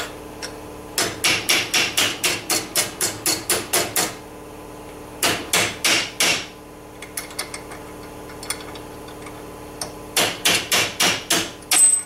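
Hammer striking a drift pin, metal on metal, to drive a rusted hinge pin out of a Ford F-250 door hinge held in a bench vise, the top bushing's head already ground off. A quick run of about a dozen blows, a shorter burst of four, a few light taps, then another run of about eight blows.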